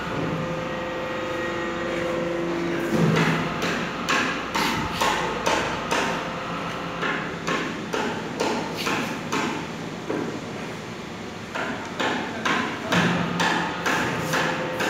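Runs of sharp knocks and slaps, several a second, coming and going, with a steady low hum near the start and again near the end.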